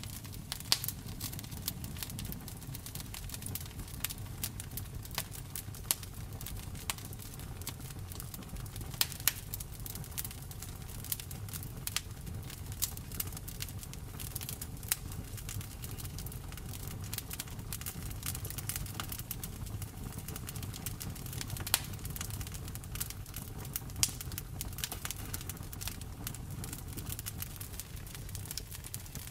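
Campfire burning: burning wood crackling and popping in sharp, irregular snaps, a few louder than the rest, over a steady low rumble of the flames.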